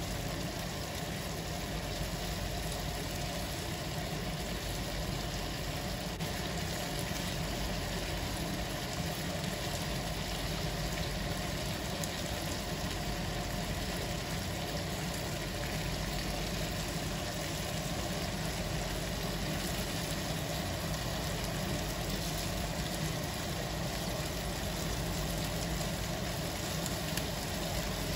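Pork rib pieces frying in hot oil in a pan, a steady sizzle over a low steady hum.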